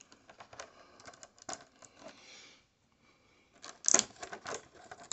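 Clear plastic blister tray crinkling and clicking as small action-figure hands are prised out of it: scattered light crackles, a short lull, then a louder cluster of crackles just before four seconds in.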